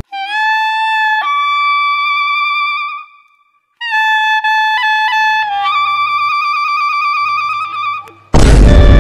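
Background music: a single wind instrument plays a slow melody of long held notes, breaking off briefly a little after three seconds. A soft low accompaniment comes in under it. Just past eight seconds a sudden loud boom hits, and the melody carries on over it.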